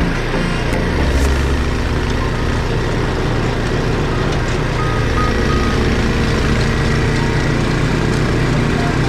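Steady, loud engine rumble of a running motor vehicle.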